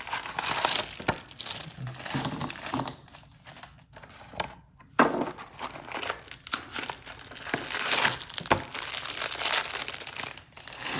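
Plastic bag of Sour Patch Kids candy crinkling as it is handled and opened, in irregular bursts with short pauses.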